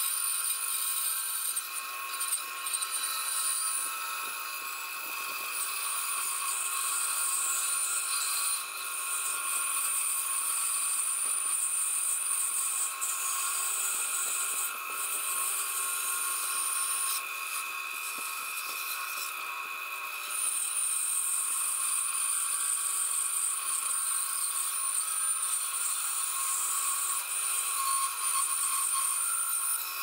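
Bandsaw running, its blade cutting a curved path through a bark-covered dogwood trunk section fed freehand: a steady motor hum with a high cutting hiss on top. The hiss eases off briefly a few times, for about three seconds past the middle, while the machine keeps running.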